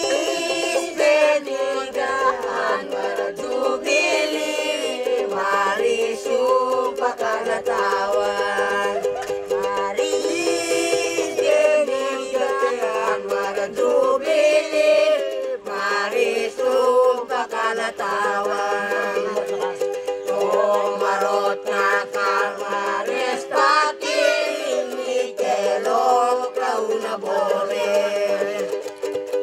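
Music with quick plucked string notes over a steady held drone.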